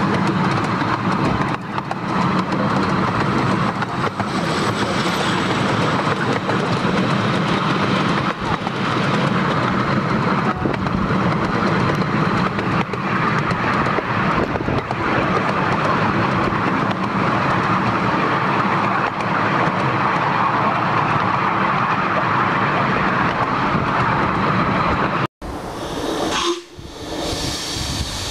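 Miniature railway train running on the track, a steady, loud running noise. After an abrupt break near the end comes a short hiss of steam from a small steam locomotive.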